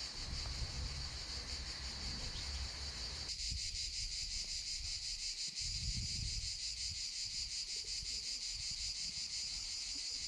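Steady, high-pitched chorus of summer insects, a fast pulsing buzz, with gusts of wind rumbling low on the microphone.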